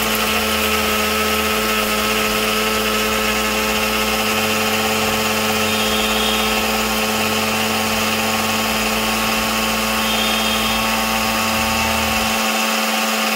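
Preethi 750-watt kitchen mixer grinder running at full speed with a steady, even whine, its steel jar grinding coconut and whole spices with coconut water into a fine paste.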